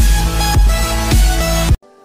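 Electronic intro music with a heavy bass beat a little under twice a second, cutting off suddenly near the end.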